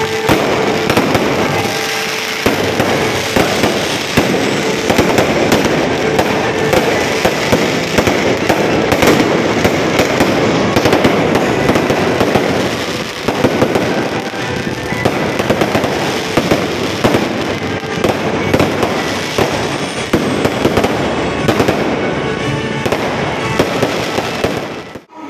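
Fireworks going off in a continuous barrage: dense, rapid crackling and popping from showers of sparks, with no let-up until a brief drop at the very end.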